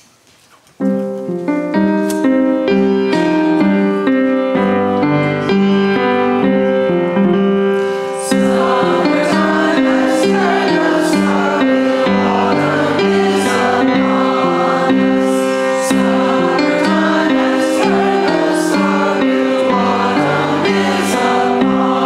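A keyboard plays a hymn introduction, starting about a second in, and about eight seconds in a congregation joins, singing the hymn to the keyboard accompaniment.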